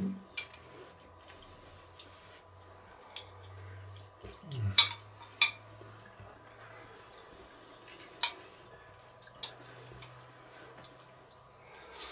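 Metal spoons scraping and tapping on disposable plates as several people eat, with scattered sharp clicks, the loudest two close together about five seconds in. A short low "mm" sound from one of the eaters comes just before those two clicks.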